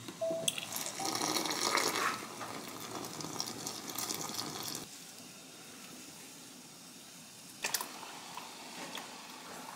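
Water running from a dispenser tap into a glass measuring cup of glutinous rice flour while a whisk stirs it. It stops after about five seconds, and near the end there is a short splash as the mixture is poured into a pot of broth.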